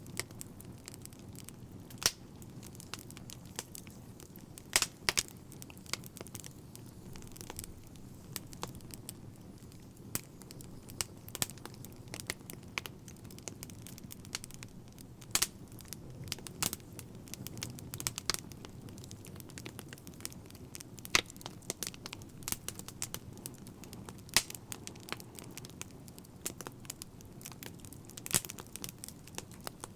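Fire crackling: irregular sharp pops and snaps, some louder than others, over a low steady rumble.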